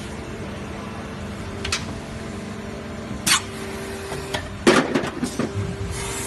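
Injection moulding machine running with a steady hum, cycling while moulding PP baby-bottle preforms: a couple of short sharp hisses, then a quick cluster of clanks and knocks about five seconds in as the mould opens and the preforms are ejected. A high hiss starts near the end.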